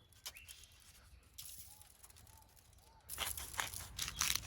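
Near-quiet at first with a few faint chirps, then from about three seconds in a crinkling, rustling handling noise, like a packet or wrapping being handled while the fish is seasoned.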